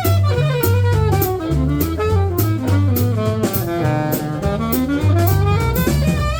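Live jazz: an alto saxophone plays fast, winding runs over a drum kit keeping time on cymbals, with a low bass part underneath. About four seconds in, the saxophone line dips low and climbs back up.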